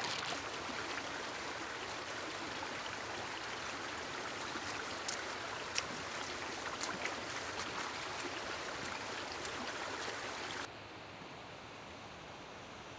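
Steady rush of flowing water, like a nearby stream, with a few faint clicks over it. Near the end it cuts abruptly to a quieter, duller hiss.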